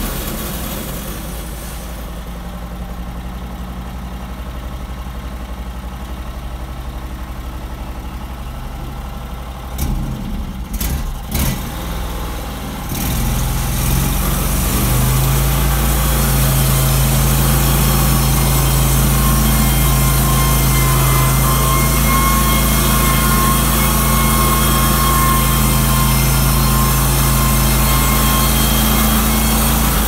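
Norwood LumberMate Pro MX34 bandsaw sawmill running, its engine at a lower, steady speed with a few sharp knocks about ten seconds in. About thirteen seconds in it steps up to a louder, steady run with a thin whine as the band blade cuts along a poplar log.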